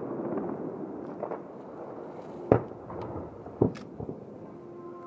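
Fireworks going off: a crackling haze at the start, then two sharp bangs about two and a half and three and a half seconds in, with fainter pops in between.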